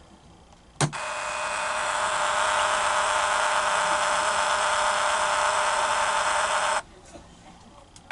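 Dymo LabelManager 160 label maker printing a label: a click, then its print motor whirring steadily for about six seconds as it feeds the tape, stopping abruptly.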